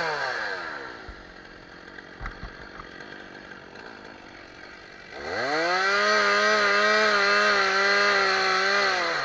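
Stihl two-stroke chainsaw dropping from full throttle to idle, idling for about four seconds with a few light knocks. It is then revved up again and held at full throttle, its pitch wavering slightly, before easing off near the end.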